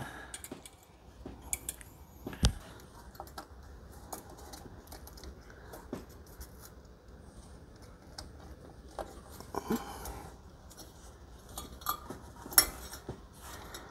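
Thin wire fan clip scraping and clicking against the fins of a Cooler Master Hyper 212 Black Edition tower heatsink as it is worked into the slots on the fin stack. Scattered light metallic clicks, with one sharper knock about two and a half seconds in.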